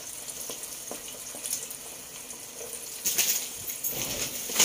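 Pot of chickpeas, fried onions, oil and water, the base for chickpea pulao, simmering on a gas stove with a steady hiss and sizzle that grows louder about three seconds in. A few light taps of a silicone spatula against the pot.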